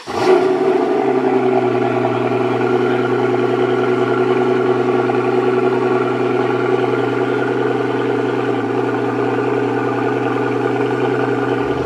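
Supercar engine idling steadily, its note holding one even pitch.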